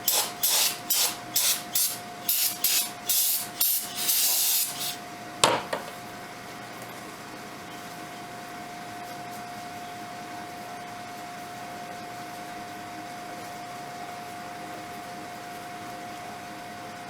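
Aerosol cleaner sprayed in about a dozen short hissing bursts, the last one longer, as the oil filter housing area of a Ford 6.0 diesel is cleaned. A sharp knock follows at about five and a half seconds, then only a steady faint hum.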